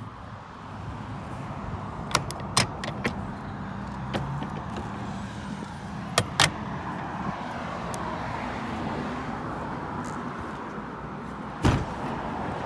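Metal latches and hardware on an aluminium horse trailer clicking and clanking: a cluster of sharp knocks about two to three seconds in, two more around six seconds, then one heavier, deeper thud near the end, over a steady outdoor background noise.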